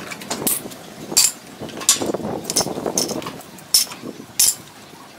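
Irregular sharp clicks and knocks, about eight of them, with handling noise between, as a plywood bending jig is taken apart and the bent ply sheets are handled.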